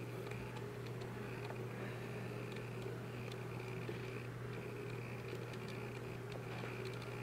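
Steady low electrical hum of room tone, with faint scattered light clicks.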